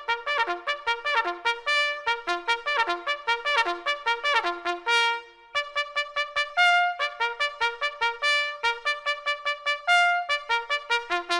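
Intro music: a fast solo tune on a single brass instrument, played as quick short notes with some notes slurred upward, and a brief break about halfway through.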